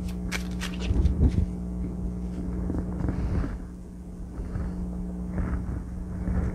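Decks of playing cards being picked up, moved and set down on a cloth-covered table: a few soft knocks and rustles over a steady low hum.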